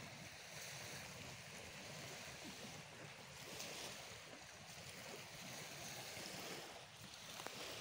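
Wind blowing across a phone's microphone outdoors: a steady rushing noise with a low rumble underneath.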